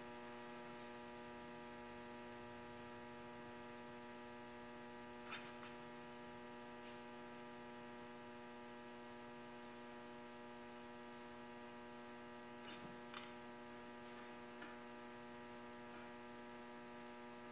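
Steady electrical mains hum, with a few faint clicks.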